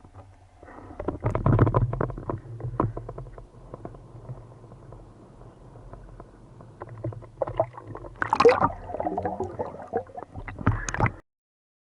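Water sloshing and gurgling with a low rumble and scattered knocks and splashes, heaviest about a second and a half in and again past the eight-second mark; it cuts off suddenly near the end.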